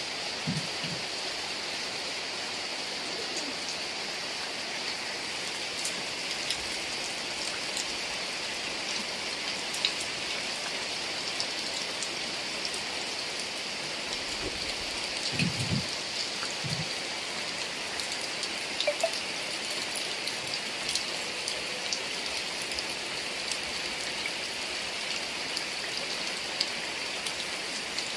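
Heavy rain falling steadily, with a constant hiss and many individual drops ticking close by. A few soft low thuds come about half a second in and again around the middle.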